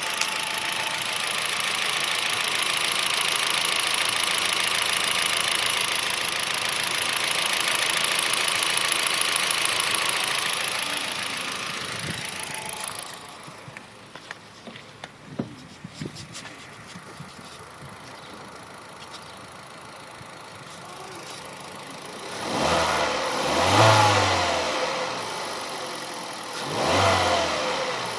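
A Kia Rio's engine running, with a noise that the owner hears as a knock and cannot explain in the nearly new car. A loud steady noise fills the first dozen seconds, then drops to a quieter run with a few sharp clicks, and the engine is revved up and let fall twice near the end.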